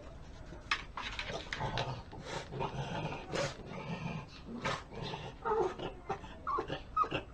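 A dog making short whimpers and grunts amid a run of brief clicks and scuffs.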